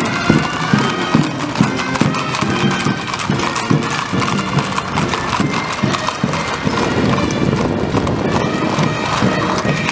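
Many horses trotting on a paved street, a dense, continuous clatter of hooves, while a military fanfare plays a march.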